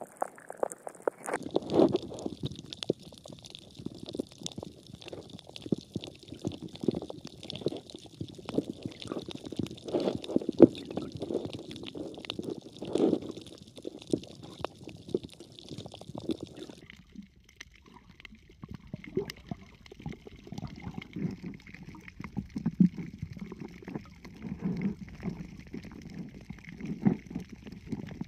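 Muffled underwater gurgling and sloshing with scattered clicks, heard from below the surface. The character of the sound changes abruptly about two-thirds of the way through.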